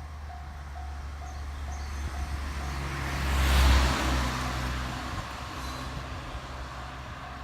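Electric train passing close by, its rumble swelling to a peak about halfway through and then fading over a steady low hum. A short electronic ding repeats quickly at the start and again near the end.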